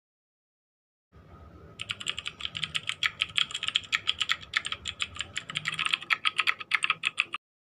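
Rapid, irregular clicking, about eight sharp clicks a second, like keys being typed. It begins about two seconds in over a faint hiss and cuts off suddenly near the end.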